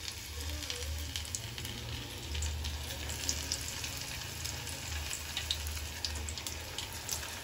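Batter-coated raw banana slices deep-frying in hot oil in a steel pan: a steady sizzle with scattered crackles, over a low hum.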